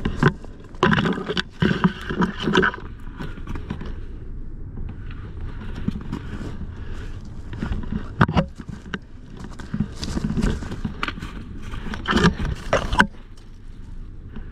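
Irregular scraping and rustling noises close to the microphone, coming in bursts that are loudest near the start and again near the end.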